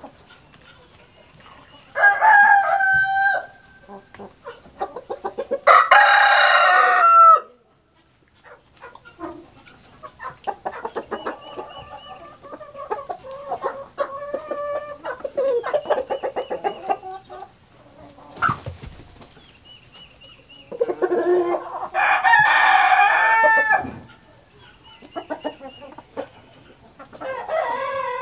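Roosters crowing several times, each crow a loud drawn-out call, with hens clucking steadily between the crows.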